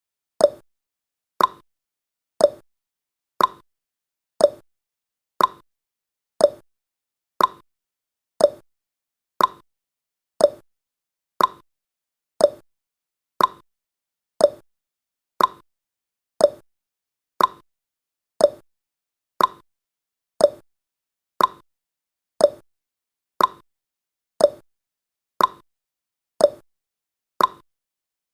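Clock-tick sound effect of a countdown timer: one short, sharp tick every second, evenly spaced.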